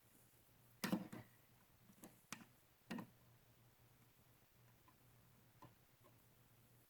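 A few sharp plastic clicks and taps as a wall cover plate is fitted over a rocker dimmer switch: the loudest, a double click, about a second in, then three lighter ones over the next two seconds.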